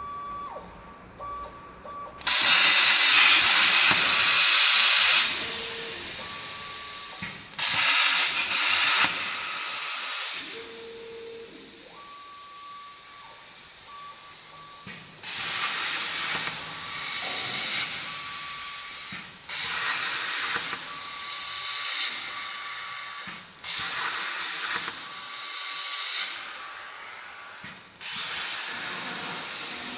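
Hypertherm-powered plasma torch on a CNC table cutting steel plate, making a loud rushing hiss. The hiss starts about two seconds in, then stops and restarts several times as the torch fires for separate cuts. Each restart is loudest at first and then settles lower.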